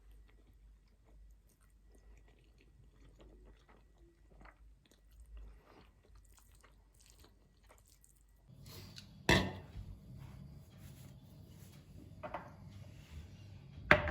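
Faint small clicks and rustles of handling. About eight and a half seconds in a low steady hum comes on, with a sharp knock soon after and two more knocks near the end.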